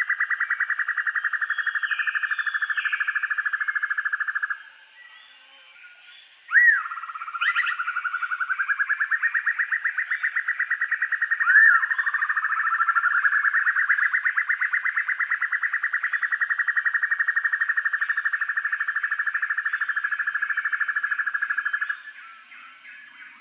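Dusky broadbill calling: long, fast, evenly pulsed trills, broken by a short pause and by two brief sharp upward notes, with one long trill running until it stops near the end.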